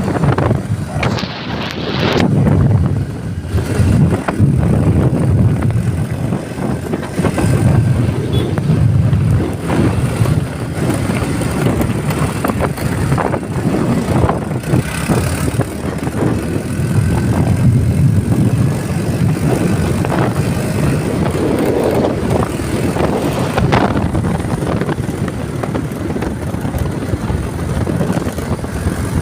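Steady, loud rumble of a vehicle travelling on the road, with wind buffeting the microphone.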